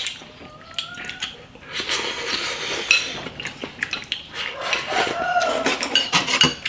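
Soup being slurped from bowls, with chopsticks and a spoon clicking against the bowls and the pot; a few sharp clicks come near the end. A short rising call is heard about half a second in.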